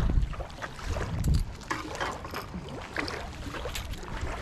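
Wind buffeting the microphone in low rumbling gusts at the start and about a second in, with small waves lapping and splashing against the concrete bank.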